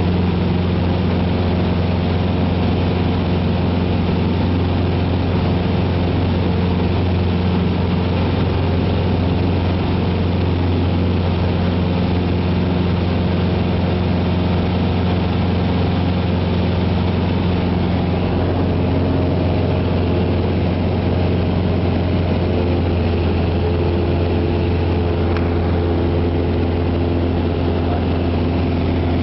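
Cessna 172's piston engine and propeller droning steadily at climb power, heard inside the cabin as a loud, even, low hum with a rushing hiss over it.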